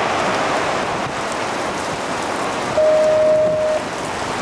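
Rain falling steadily during a tornado, with a single steady beep lasting about a second, about three seconds in.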